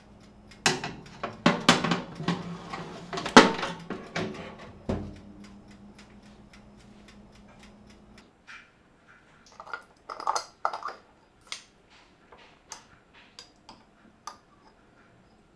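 Metal clattering and clanks as a tray and wire rack are slid into a countertop electric oven, over a low steady hum that stops about eight seconds in. After that, only scattered faint ticks and clicks.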